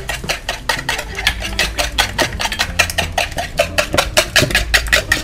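Eggs and sugar being beaten by hand in a plastic mixing bowl, a metal utensil clicking against the bowl in a fast, even rhythm of about six strokes a second.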